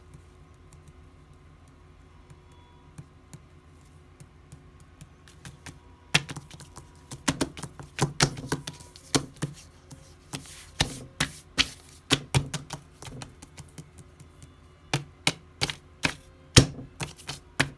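Typing on a computer keyboard: a few faint clicks at first, then from about six seconds in a run of sharp, irregular key clicks and taps.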